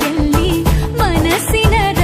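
Background music: a sung song with a steady beat.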